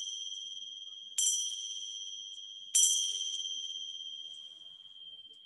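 Tingsha, a pair of small cymbals joined by a cord, still ringing from a strike just before and then struck together twice more, about a second and a half apart. Each strike leaves a clear, high two-tone ring that lingers and fades slowly, marking the end of the relaxation.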